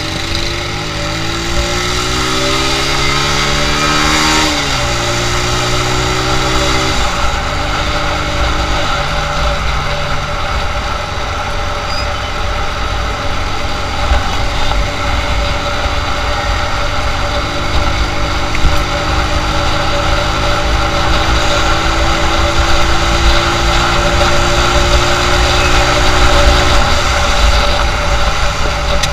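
Motorcycle engine pulling away, rising in pitch and dropping at a gear change about four seconds in, rising again and shifting once more about seven seconds in, then running at a steady cruise, over continuous wind and road noise.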